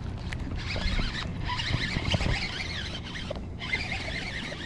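Baitcasting reel being cranked, giving a wavering, squealing whir as line is wound in, with a brief pause about three seconds in.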